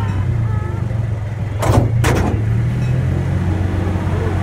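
Steady low hum of a moving train heard from on board. About two seconds in come two short hissing bursts of noise close together.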